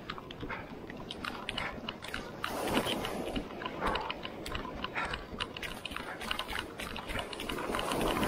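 Small waves washing up and draining back on a sandy beach, with dense, irregular crackling clicks.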